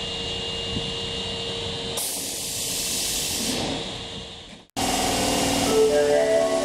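Subway train with a steady hum, then about two seconds in a sudden hiss of compressed air that lasts about a second and a half and fades out. After an abrupt cut near the end, a chiming melody of held notes begins.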